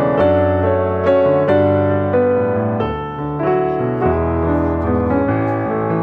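Background piano music: a slow melody of single notes, about two a second, over held low notes.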